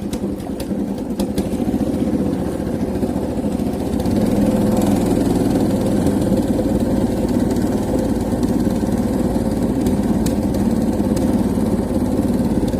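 A small boat's engine running steadily, getting a little louder about four seconds in.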